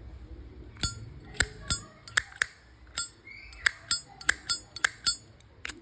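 A 1959 brushed-chrome Zippo lighter being worked by hand: about a dozen sharp metallic clicks and clinks as its hinged lid is flicked open and snapped shut and the mechanism handled.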